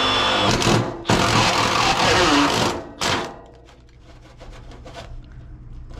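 Cordless drill with a step bit cutting through the sheet-metal housing of a walk-in cooler evaporator. It runs in two long bursts; the motor winds down at the end of the second, and a short final burst follows about three seconds in.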